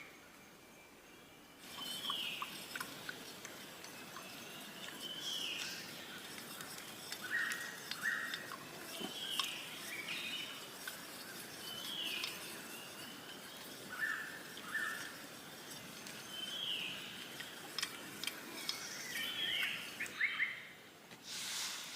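Birds calling over and over, short downward-sliding chirps alternating with paired lower notes every couple of seconds, over a steady outdoor hiss. The first second or two is quieter, before the calls and hiss come in.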